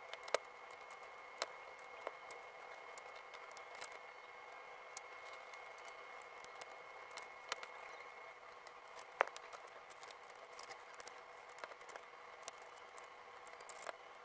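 LEGO bricks and assembled pieces clicking and clattering as they are handled and set down on a baseplate, in scattered light clicks with a few sharper knocks, over a faint steady hum.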